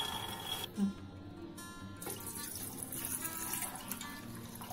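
Water poured from a jug onto raw peanuts in a bowl, splashing steadily from about two seconds in, to soak them. Acoustic guitar music plays underneath.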